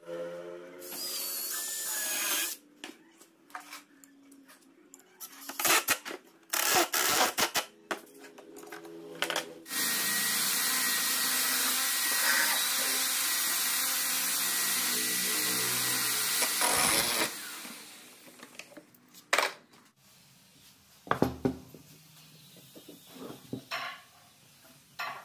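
Makita cordless drill-driver driving screws into pine: a short burst, several brief bursts, then one long steady run of about seven seconds. A few short knocks of wood near the end.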